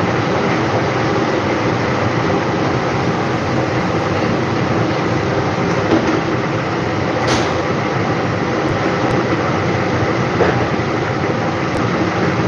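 Kitchen exhaust fan running with a steady, loud rush, with a few light clicks and taps of utensils at the pan.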